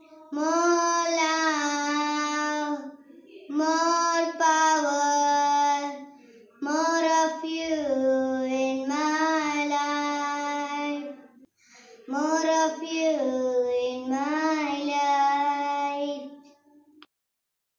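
A young girl singing a Christian worship song solo, unaccompanied, in four long sustained phrases with short breaks for breath between them; she stops about a second before the end.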